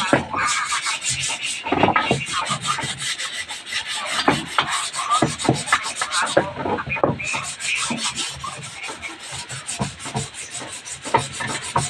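Quick, repeated scraping strokes of a hand tool working wood, like a rasp or file shaving down a wooden speargun part.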